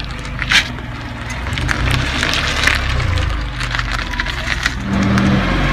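Car tyre rolling over and crushing small objects on pavement: irregular crackling and crunching with one sharp snap about half a second in, over the car's low engine hum.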